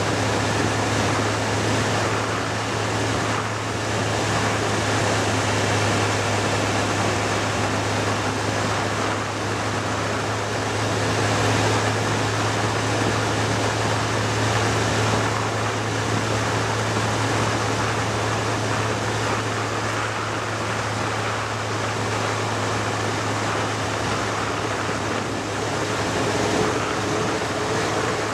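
Onboard sound of a vehicle cruising along an open road: a steady rush of wind and road noise over a low, even engine hum, with a faint higher whine joining near the end.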